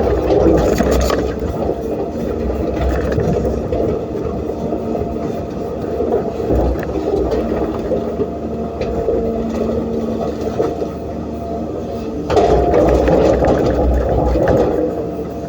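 Hydraulic excavator's diesel engine running under working load, with a steady hydraulic whine over it; it grows louder about twelve seconds in.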